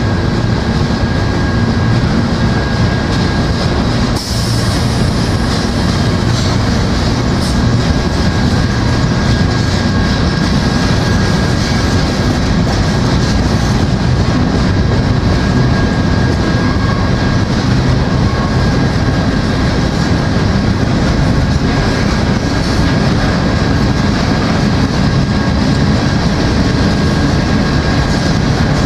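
Empty grain hopper cars of a freight train rolling steadily past, a continuous noise of steel wheels running on the rails, with a thin steady high tone above it.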